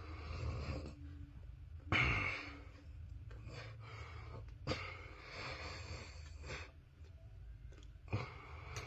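A man taking four sharp, hissing breaths through his mouth, the loudest about two seconds in and a longer one in the middle, from the burn of chewing raw chili peppers.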